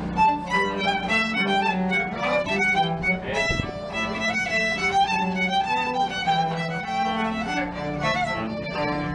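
Violin and cello duo playing: the violin carries the melody over sustained low cello notes that change pitch every second or so.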